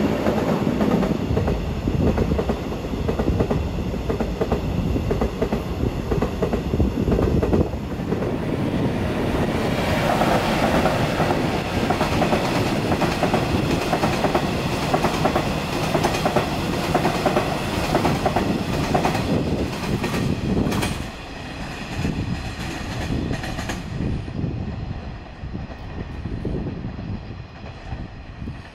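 New Woojin-built Seoul Subway Line 5 electric multiple-unit cars, towed unpowered in a freight delivery, rolling past on the rails. The sound fades over the last several seconds as the train moves off.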